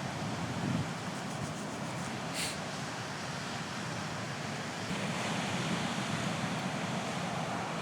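Sea waves washing onto the shore under a steady wind, swelling louder about five seconds in.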